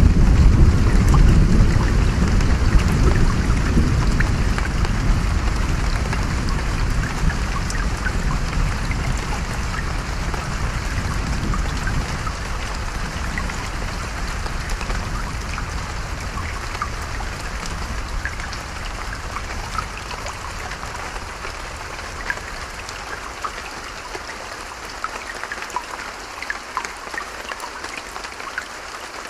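Steady rain and running water with scattered drop ticks, under a long roll of thunder that is loudest at the start and slowly fades away over about twenty seconds.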